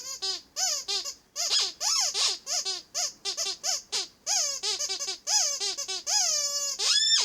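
Rubber squeaky toy duck squeezed over and over in quick succession, a run of short squeaks that each drop in pitch, with a few longer drawn-out squeaks near the end.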